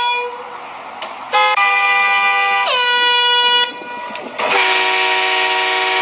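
Air horn blasting twice, each blast about two seconds long: the first drops sharply in pitch partway through, and the second comes with a loud hiss of air. The tail of an earlier blast ends just at the start.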